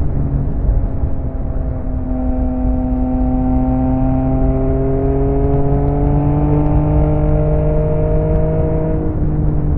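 Yamaha XSR900's three-cylinder engine through an M4 aftermarket exhaust, pulling steadily with its pitch slowly rising for several seconds, then dropping back shortly before the end.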